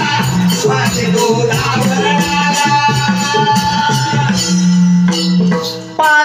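Jakhadi (shakti-tura) folk music: a steady beat with jingling, rattling percussion under a held melody line, dipping briefly near the end.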